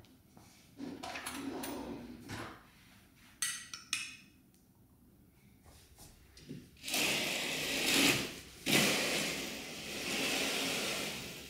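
A few light knocks first, then floor-length curtains being drawn open along their rail in two long pulls, the heavy fabric swishing and the carriers sliding on the track.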